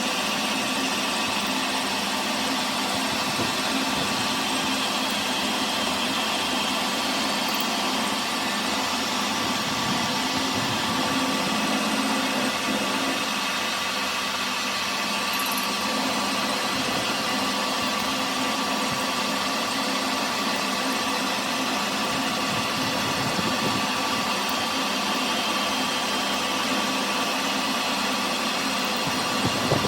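A workshop machine running steadily with an even mechanical hum and whine that does not change.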